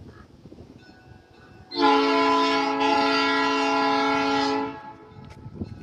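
Locomotive air horn on the Sierra Northern F7 diesel, sounding one long blast of about three seconds as a steady chord of several notes, then cutting off.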